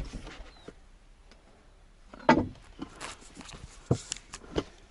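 Footsteps and knocks on wooden boards. The loudest is a sharp knock about two seconds in, followed by a couple of lighter thumps near the end.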